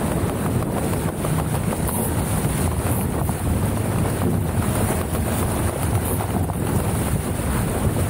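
Strong wind buffeting the microphone of a sailing dinghy under way, a steady heavy rush with water sounds beneath it.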